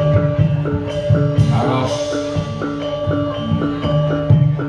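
Javanese gamelan-style music: metallophone notes repeating in a steady interlocking pattern over regular deep drum strokes.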